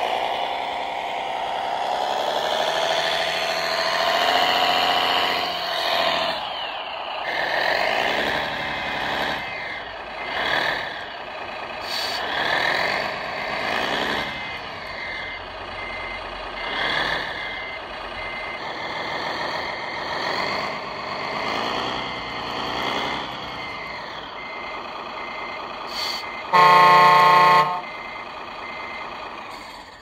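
Radio-controlled model New Holland tractor's electronic engine-sound module revving up and down again and again as the tractor sits stuck in a sand trench, with a high beeping through the middle. A loud horn blast of about a second near the end.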